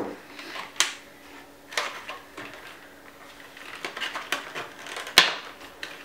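A glossy black makeup gift-set box being handled and opened by hand: scattered rustles and light clicks of the packaging, with a few sharper clicks, the loudest about five seconds in.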